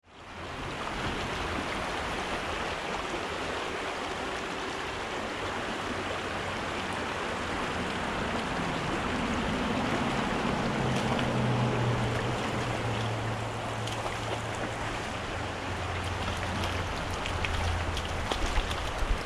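Small mountain creek running over rocks: a steady rush of water, with a low hum of highway traffic that swells about halfway through. Near the end come a few sharp splashes as a hooked brown trout thrashes at the surface.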